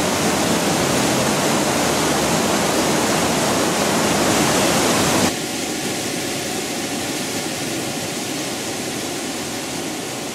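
Waterfall and rocky mountain stream rushing: a steady, loud roar of falling and tumbling water that drops in level suddenly about five seconds in.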